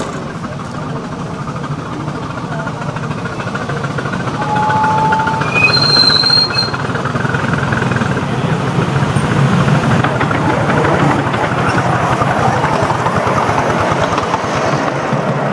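Miniature steam locomotive hauling a passenger train, growing louder as it approaches and passes, its running and the wheels on the rails making a steady rumble.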